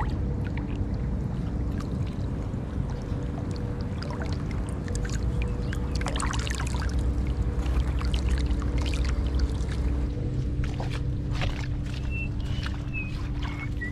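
Catfish thrashing and splashing in shallow muddy water, with irregular splashes over a steady low rumble and a faint steady hum.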